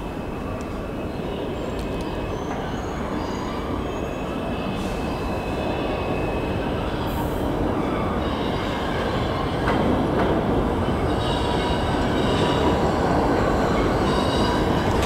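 New York City subway F train approaching and entering the station, its rumble growing steadily louder, with high-pitched squealing from the steel wheels on the curved track.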